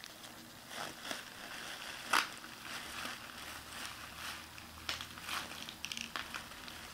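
Plastic bubble wrap crinkling and rustling in irregular bursts as a toddler crumples and shakes it, with one sharp crack about two seconds in, the loudest sound.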